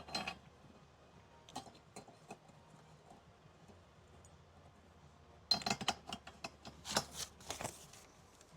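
A few scattered light clicks, then about five and a half seconds in a cluster of clinks and rattles lasting some two seconds, from the opener's belt, pulley and hardware being handled.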